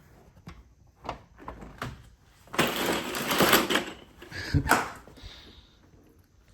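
Car door handle and latch being worked: sharp clicks and knocks, a second or so of scraping, rustling noise in the middle, then two louder latch clunks.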